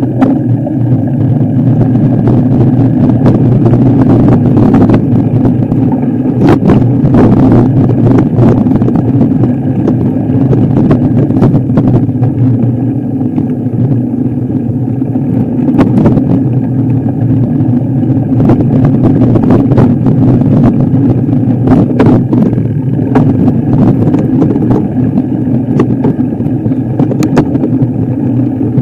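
A vehicle engine running steadily under way, with scattered sharp knocks throughout.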